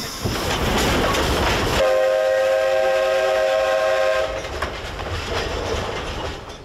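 Narrow-gauge steam locomotive hissing steam, then its steam whistle blowing a steady chord for about two and a half seconds, starting about two seconds in, followed by fainter running noise that fades away.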